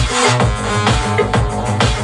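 Techno mixed live on a DJ controller: a steady four-on-the-floor kick drum at about two beats a second under synth lines, with a brighter hissy wash just at the start.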